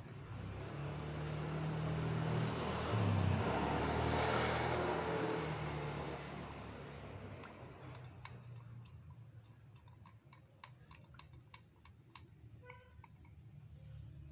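A motor vehicle passes by, its engine hum and noise swelling to a peak about four seconds in and then fading away. Afterwards come light clicks and taps of a wooden stir stick against a glass cup and paint cans.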